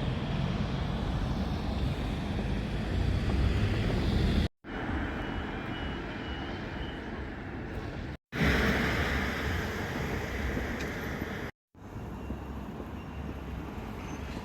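Heavy truck engine rumble with road traffic noise, typical of a fire engine running and pulling away, broken by three brief dropouts to silence where the footage is cut.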